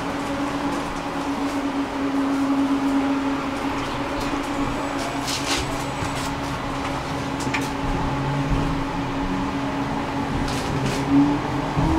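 Tram standing with a steady electrical hum and a few light clicks. Near the end a whine starts and rises in pitch as the tram's traction motors pull it away.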